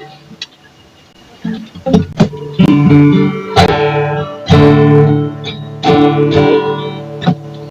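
Guitar being tried out: after a quiet moment, a couple of single plucked notes about two seconds in, then chords strummed again and again, each left ringing.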